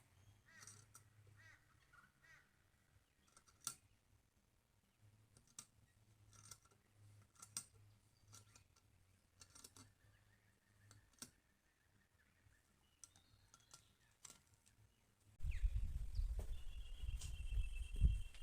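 Faint, scattered clicks and taps with a few short bird chirps over a low hum. About three seconds from the end, a sudden loud low rumble begins, and a bird trills over it.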